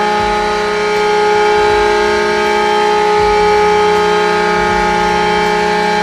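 Custom Atlanta Thrashers hockey goal horn sounding one long, steady chord of several tones, getting a little louder about a second in.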